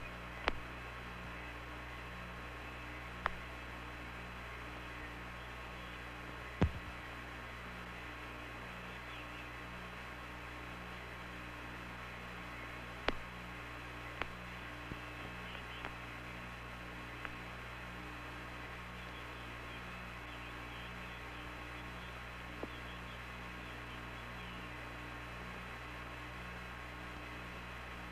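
Steady hum and hiss of the Apollo 11 air-to-ground radio link with no one talking, a faint regular pulsing low tone underneath. A handful of short clicks come through, the loudest about six and a half seconds in.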